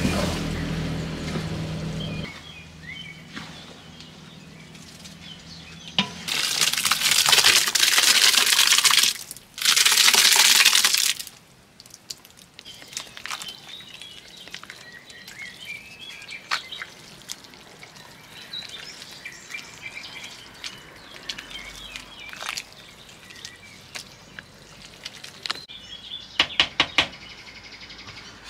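Background music fades out near the start. About a quarter of the way in come two loud rushes of hissing noise, a few seconds long. Then a quiet outdoor background with faint bird chirps and scattered clicks, and a quick run of clicks near the end.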